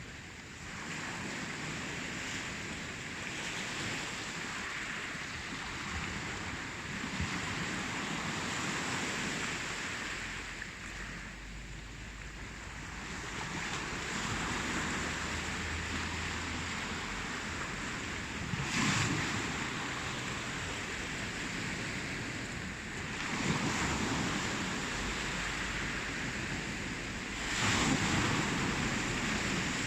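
Ocean waves breaking and washing on a shore: a steady rushing that swells and ebbs, with three louder crashes in the second half.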